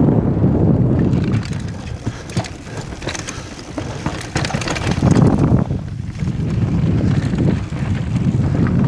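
Wind rushing over a helmet-mounted camera's microphone as a mountain bike descends a rocky trail at speed, with the bike's frame and chain rattling and clattering over stones. The wind rush eases for a few seconds after about a second in, letting a quick run of sharp knocks come through, then builds again.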